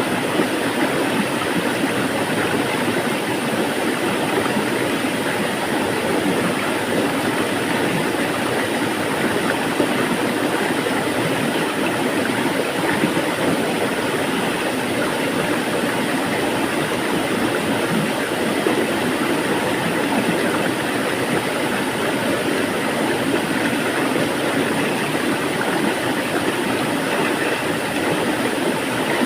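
Flowing water making a steady, even rushing noise with no change in level.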